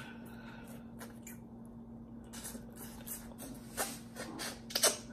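Close-up mouth sounds of eating stewed turkey neck meat picked off the bone by hand: scattered wet lip smacks and chewing, the sharpest pair near the end. A steady low hum runs underneath.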